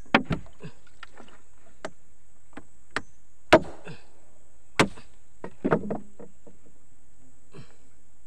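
Machete chopping at a fish's hard fin spine: a series of sharp, irregularly spaced chops, the loudest about three and a half seconds in, with a quick run of blows around six seconds in.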